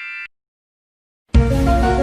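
A ringing ding sound effect ends, cut off sharply. After about a second of dead silence, a music cue starts abruptly near the end, with a bass line and melody notes.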